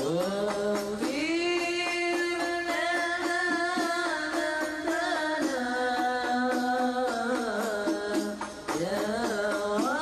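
Background music: a solo voice singing an Islamic devotional song (sholawat) in long held notes that slide between pitches, over light percussion in a steady beat. A new sung phrase begins near the end.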